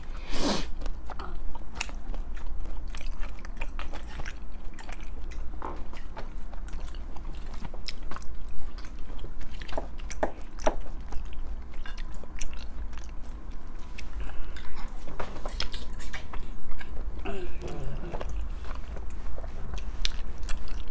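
Close-miked eating sounds: chewing and biting on tteokbokki rice cakes and ramen noodles, with many short sharp clicks scattered throughout. A steady low hum runs underneath.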